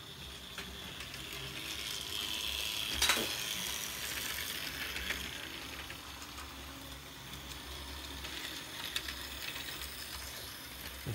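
Vintage Lego model trains running on the layout: a steady mechanical whir and rattle of small train motors and wheels on the track. There is a sharp click about three seconds in.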